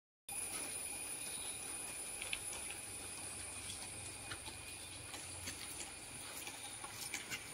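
Faint outdoor background: a steady thin high whine over a soft hiss, with scattered light ticks and clicks.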